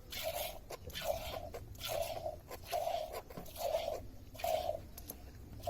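Buffalo being milked by hand: jets of milk hissing into a metal pail, one squirt a little under every second, each with a ringing note from the pail.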